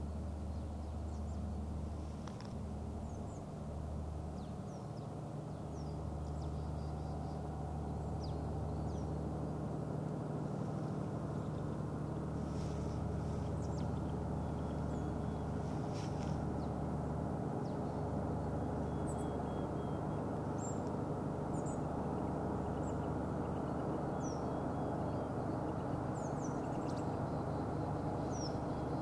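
An engine running with a steady, even low hum that does not change, with small birds calling in short high chirps over it.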